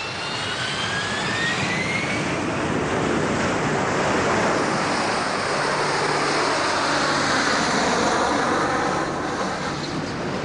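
Harrier jump jet's Pegasus vectored-thrust turbofan at full thrust in a vertical takeoff: a steady jet roar that builds over the first few seconds, with a rising whine early on.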